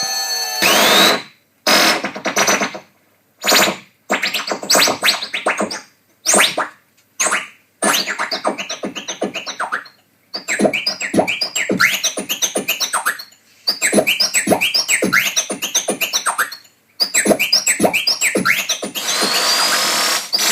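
Revox A77 reel-to-reel tape recorder played as an electroacoustic instrument: bursts of scratchy, chirping tape noise with quick swooping pitch glides, starting and stopping abruptly with short silences between. The bursts merge into a denser run near the end.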